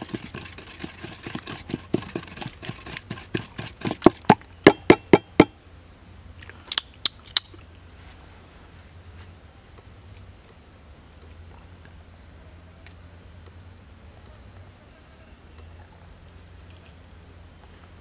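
Pestle pounding chili sauce in a wooden mortar, the strikes quickening and growing louder until about five seconds in. Three sharp knocks follow, then a steady high-pitched insect drone.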